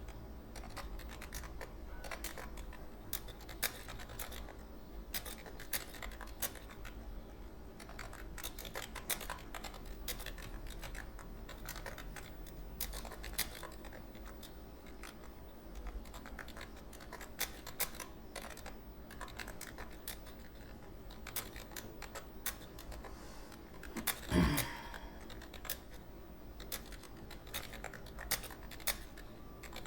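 Computer keyboard keys being typed in quick, irregular clicks during a timed typing test, over a low steady hum. About 24 seconds in there is one brief louder sound.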